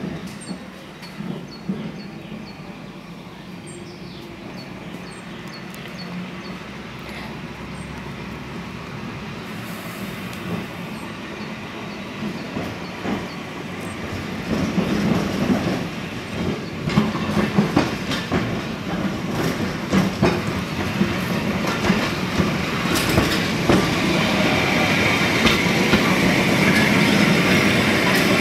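Electric Blackpool tram running on street track as it approaches and passes close by: rumbling wheels with sharp clicks over the rail joints, growing louder from about halfway, and a high-pitched wheel squeal near the end.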